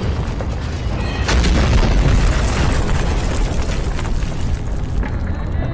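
Animated sound effect of the ground tearing apart and erupting skyward: a heavy, continuous booming rumble that swells sharply about a second in and rolls on, with music faintly underneath.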